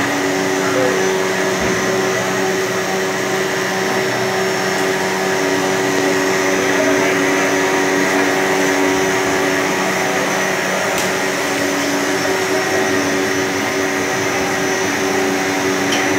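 Plastic granule-making extruder line running: a steady machine drone with several constant tones over a hiss, unchanging throughout.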